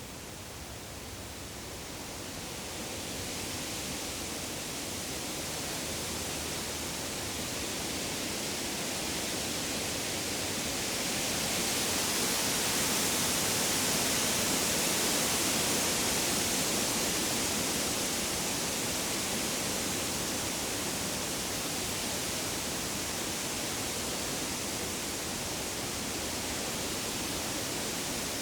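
Wind rustling through the leaves of deciduous trees, a gust building over the first few seconds, strongest around the middle, then easing a little.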